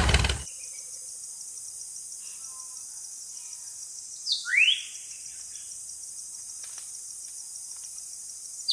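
Outdoor ambience: a steady high, insect-like hiss with one short bird chirp, rising then falling, about four seconds in. An engine sound cuts off just as it begins.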